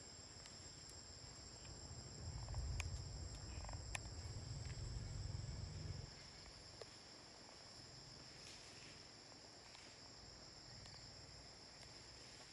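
Steady high-pitched insect chorus, a continuous drone of chirring insects. A low rumble rises about two seconds in and drops away about six seconds in, with a few faint clicks.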